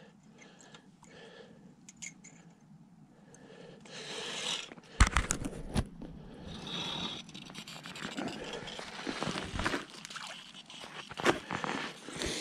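Crunching and scraping of snow and slush ice at an ice-fishing hole, with a few sharp knocks, as a hooked bass is brought up through the hole. It is near-quiet for the first few seconds.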